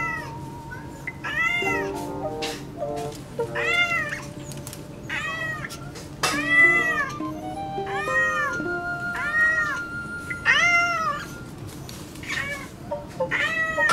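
A cat meowing about ten times in a row, each meow rising and then falling in pitch, while it is held and needled for acupuncture in its leg. Light background music with short stepped notes plays underneath.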